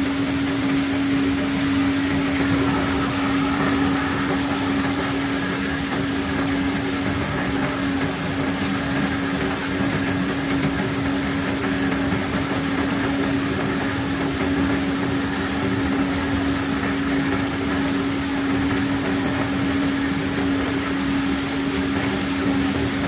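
Engine of the pebble-unloading machinery on a sand ship running steadily at constant speed: a continuous even hum with no change in pitch.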